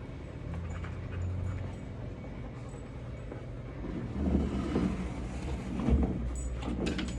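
A dog making a few short vocal sounds, about four seconds in and again near the end, over a steady low rumble.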